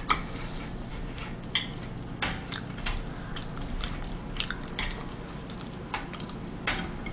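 Close-miked eating sounds: scattered sharp clicks and taps of wooden chopsticks against pizza slices and a tabletop grill plate, with some chewing.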